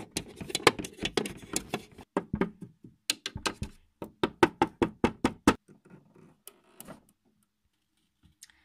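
Small plastic toy figure tapped along a wooden floor to make footsteps: a quick run of sharp knocks, about four a second, that thins to a few faint clicks after about five and a half seconds.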